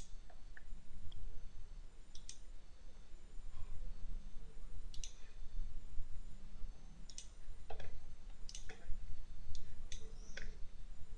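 Computer mouse clicks, about nine of them at uneven intervals, over a low steady hum.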